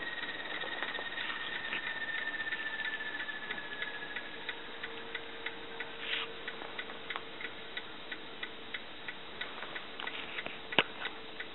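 Small speaker of a Loksound V4 Micro sound decoder in an N gauge Graham Farish Class 37 model playing Class 37 diesel locomotive sound. A high whistle falls slowly in pitch and fades about four seconds in, giving way to a lower steady hum. Regular light ticking runs at about three a second, with one sharper click near the end.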